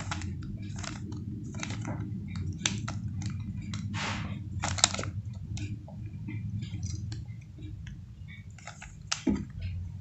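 Stickerless plastic 3x3 Rubik's cube being turned by hand: irregular clicks and clacks as its layers are twisted, a few of them sharper, about a third of the way in and near the middle.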